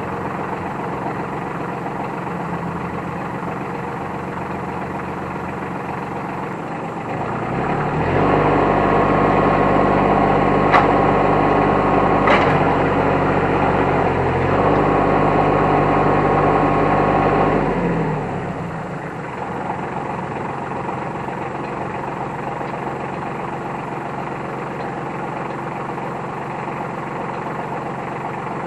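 New Holland T1510 compact tractor's diesel engine running steadily. About seven seconds in it revs up for around ten seconds, with two sharp clicks in the middle, then drops back to its lower speed.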